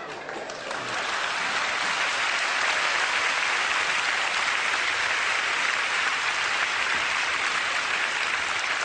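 Large audience applauding, swelling about a second in and then holding steady.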